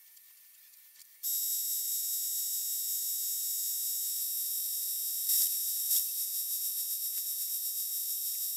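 Near silence for about a second, then a contact-adhesive spray gun runs with a steady high-pitched whistle made of several tones, with two faint knocks around the middle.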